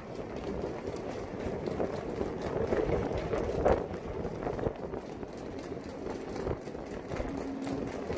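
Irregular footsteps and knocks on a catamaran deck over a steady outdoor background noise, with one louder knock a little past halfway.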